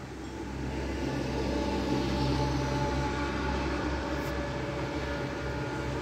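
Outdoor rumble of gusting wind and city traffic, swelling about a second in and then holding steady, with a faint hum running through it.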